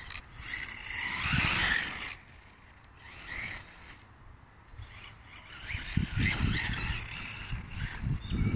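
FTX Carnage RC buggy on a 3S battery driving across grass, its electric motor whining in two spells of throttle: one about a second in and another from about six seconds in. Wind buffets the microphone during the second spell.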